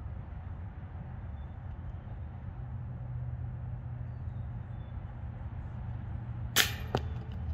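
A golf disc strikes something hard with a single sharp crack about six and a half seconds in, followed by a few lighter knocks and rattles. A steady low rumble runs underneath.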